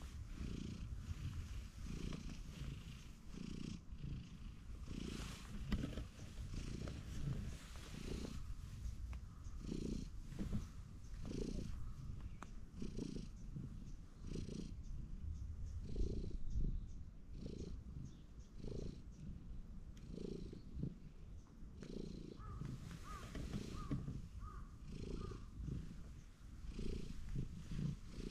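Cat purring close up while being stroked on a lap, the purr swelling and easing again about once a second with each breath.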